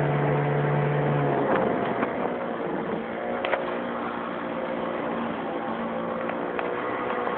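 1964 Evinrude Sportwin 9.5 hp two-cylinder two-stroke outboard motor running, dropping in pitch and level about a second and a half in, then running steadily at the lower speed.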